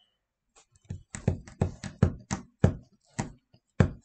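Keys struck on a computer keyboard: an irregular run of about a dozen firm keystrokes, a couple a second, starting about a second in.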